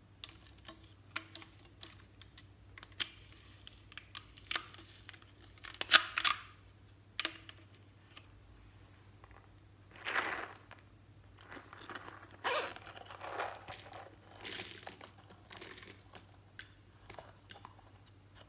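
Hands handling plastic and silicone toys: irregular clicks and taps, the loudest about six seconds in, with a few longer rustling scrapes in the second half.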